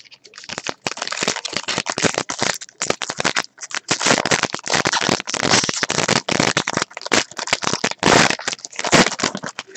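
Foil wrapper of a 2012 Elite Football trading-card pack crinkling and tearing as it is opened by hand: a dense crackling with a few short pauses.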